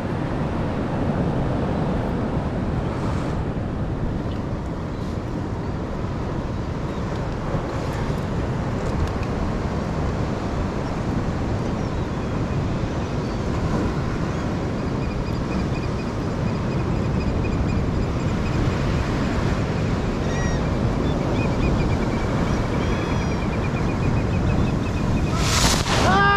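Sea surf washing against a rocky shore, a steady rushing noise with wind buffeting the microphone. A few faint high chirps come through in the second half, and a sudden loud burst of noise hits near the end.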